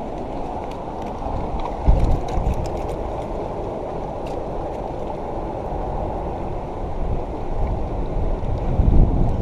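Steady rushing of wind and water with low buffeting on the microphone, surging about two seconds in and again near the end.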